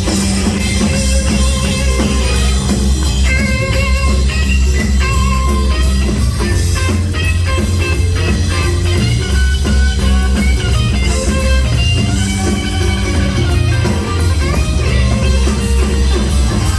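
Live blues-rock band playing an instrumental passage, a guitar carrying the melody over the drum kit, with no singing.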